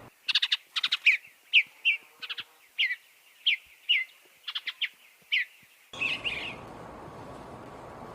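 A small songbird calling in a rapid series of short, sharp, down-slurred chirps, about a dozen over six seconds. About six seconds in, the sound switches abruptly to a different recording with a steady hiss and one more brief cluster of chirps.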